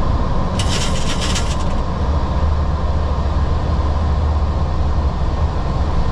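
Steady low drone inside the cockpit of a Boeing 737-800 climbing after take-off. A short burst of crackling hiss comes about half a second in and stops after about a second.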